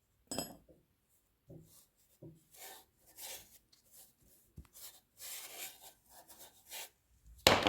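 Paintbrush working carborundum grinding paste onto the blades of a cylinder mower: a string of short, soft scratchy strokes and dabs, with a louder scraping clatter near the end.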